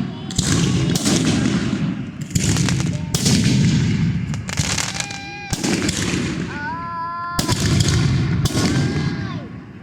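Fireworks going off in a rapid series of loud bangs, about one a second, each followed by a rolling rumble.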